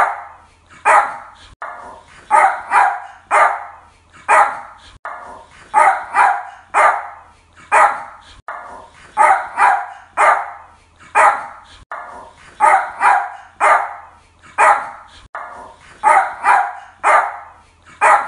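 Yorkshire Terrier barking: sharp, high barks in a steady repeating pattern of a single bark followed by a quick run of two or three, about every three and a half seconds.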